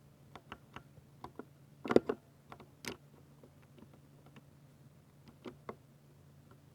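Sparse, irregular keystrokes on a 60% mechanical keyboard with silver linear switches, with a louder cluster of presses about two seconds in, over a faint steady low hum.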